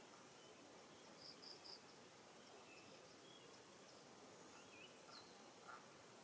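Faint marsh ambience: a steady thin insect hum, with a few short distant bird chirps, three quick high notes about a second in and a couple more near the end.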